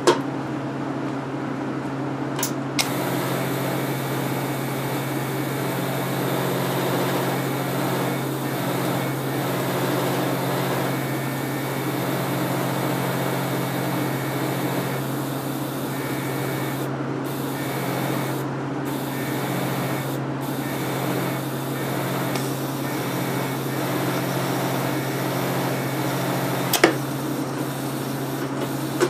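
AC arc welder humming steadily while its current runs through a dead alkaline D-cell battery. From about three seconds in, a continuous sizzling crackle comes from the sparking contact at the battery as the cell heats and smokes. A sharp crack comes near the end.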